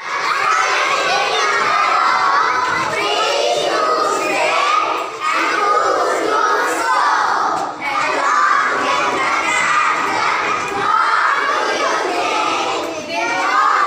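A group of young children shouting and cheering together, many voices overlapping in a loud, continuous clamour with a few brief dips.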